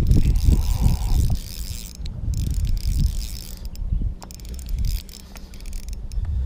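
Spinning fishing reel being cranked, a mechanical whirring with ticks, over irregular low rumbling bumps that are loudest in the first second or so.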